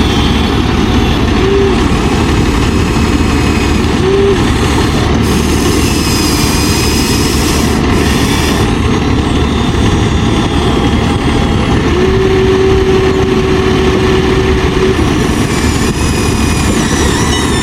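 Steady low engine-like running noise, with a brief tone twice early on and a longer held tone from about twelve to fifteen seconds in.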